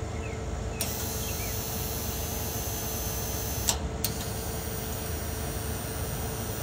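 Soda vending machine's cooling unit running with a steady hum, with a few clicks from the vend motor mechanism as it is handled.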